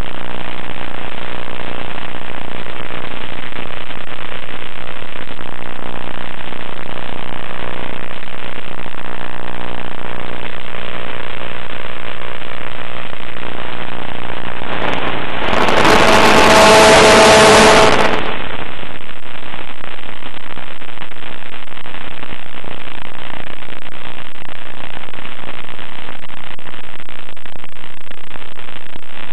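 Onboard audio of an FPV model plane in flight: a loud, steady hiss with the drone of its motor and propeller. About halfway through, a louder, brighter burst of noise with a few steady tones lasts about three seconds.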